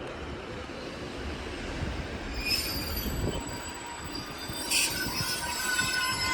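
A train running through the station with a steady low rumble, its wheels squealing against the rails in several high tones from about halfway in, growing louder toward the end.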